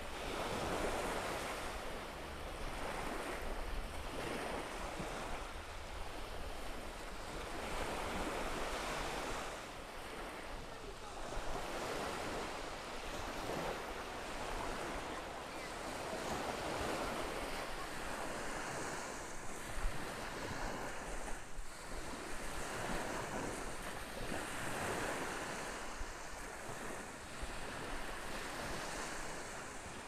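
Waves breaking and washing up a beach, the surf swelling and ebbing every few seconds, with wind rumbling on the microphone.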